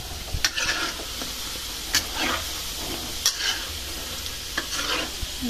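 Fishballs deep-frying in oil in a wok with a steady sizzle, while a slotted metal spatula stirs them, clicking and scraping against the wok a few times.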